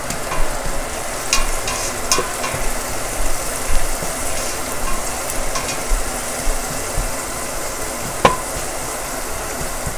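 Sliced onions, dill and whole spices sizzling in ghee in a stainless steel pot while a spatula stirs them, with a few sharp clicks of the spatula against the pot.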